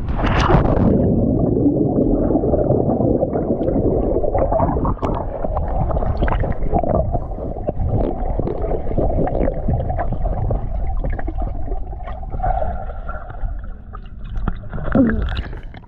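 Swimming-pool water heard from underwater: a splash as the microphone goes under, then a loud, muffled rush of water with bubbling and gurgling.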